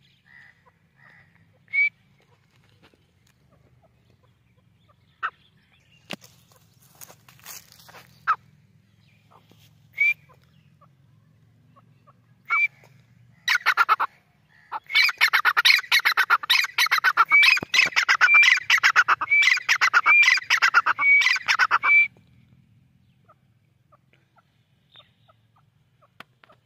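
Grey francolin calling: a few single short notes spaced seconds apart, then past halfway a loud, rapid run of repeated high notes lasting about eight seconds that stops abruptly.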